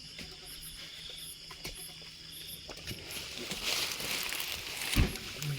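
Night insects trilling in steady high tones. A rustling hiss rises about three seconds in, and one dull thump comes near the end.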